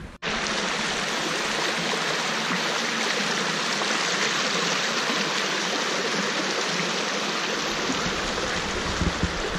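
Steady rushing and splashing of water cascading down the stepped granite bed of an ornamental fountain channel. It begins abruptly just after the start.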